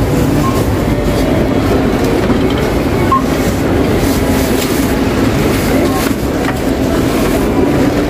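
Supermarket checkout-area ambience: a steady rumble of store noise with murmuring voices, and a few short beeps from the tills.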